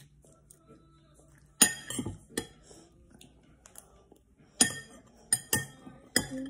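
Metal spoon clinking against a bowl while scooping up rice and corn: a few sharp, briefly ringing clinks about a second and a half in, and another bunch from about four and a half seconds.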